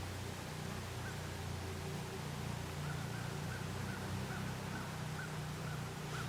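Feral hogs squealing faintly in the distance, a string of short repeated calls several times a second, over a steady low rumble.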